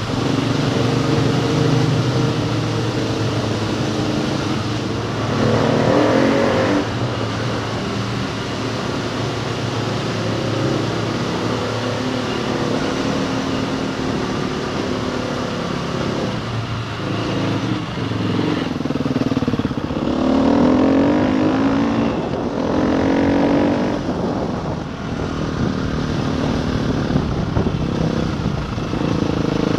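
Enduro motorcycle engine running as it is ridden, revving up and easing off, with the pitch climbing about six seconds in and again around twenty seconds in.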